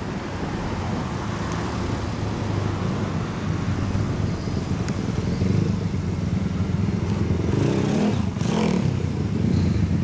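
Single-cylinder MZ 250 racer's engine running steadily at idle through its White House muffler, with a brief swell about eight seconds in.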